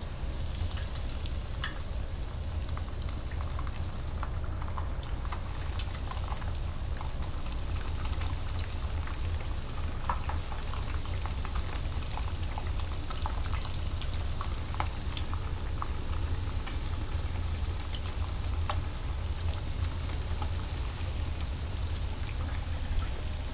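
Cornmeal-coated fish pieces deep-frying in a saucepan of hot oil: a steady sizzle with frequent small crackles and pops, starting as the first pieces go in, over a steady low hum.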